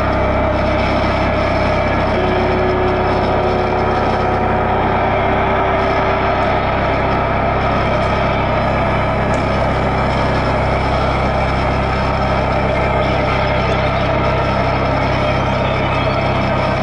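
Live experimental trio of electric guitar, alto saxophone and drums playing a loud, dense, steady wall of distorted, droning noise, with a sustained low hum underneath and no clear drum hits.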